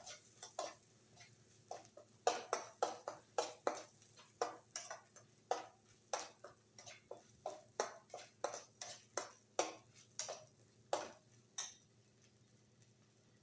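Metal spatula knocking and scraping against a stainless steel pan while stirring a masala paste frying in oil, about two to three strokes a second, stopping near the end. The masala is being sautéed until the oil separates.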